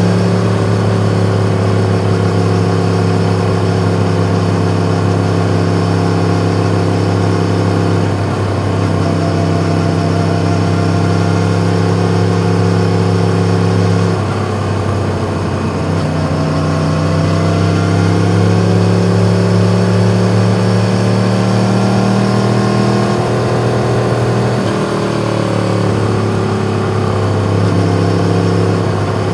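Yamaha MT-10's crossplane-crank inline-four with an Akrapovič exhaust running at steady riding revs. Its note changes pitch three times, and once it climbs slowly for several seconds.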